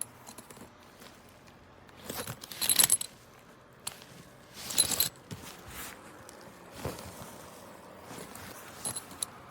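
A backpack's small detachable key holder jingling as it is handled, in a few short bursts, the loudest about three seconds in and another near five seconds.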